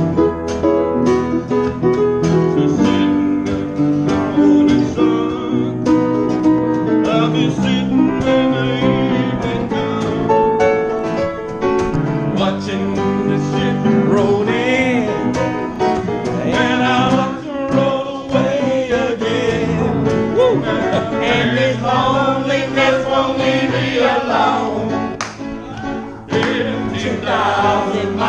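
Live piano and acoustic guitar playing a gospel-tinged tune, with a man singing that comes in a few seconds in.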